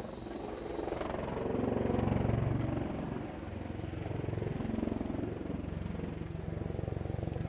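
Aircraft engine running on the ground, a steady low rumble with a rapid pulsing that swells and eases a couple of times.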